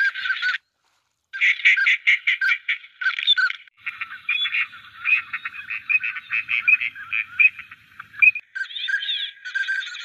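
A chorus of ducks calling, many rapid chattering and squawking calls overlapping. The calls break off abruptly for under a second just after the start, then resume.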